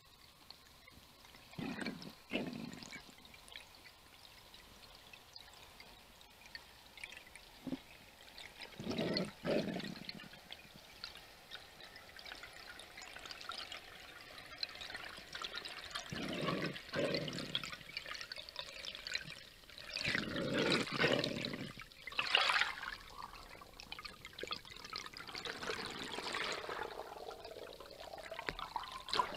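Underwater sound picked up by a speargun-mounted camera: irregular bursts of water rushing and bubbling, about six of them, between quieter stretches of faint underwater hiss.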